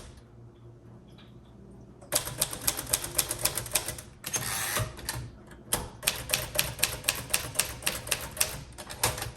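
A 1939 Royal Aristocrat manual typewriter being typed on: fast runs of crisp keystrokes, about five or six a second, begin about two seconds in. A short half-second rasp near the middle breaks the runs before the typing goes on.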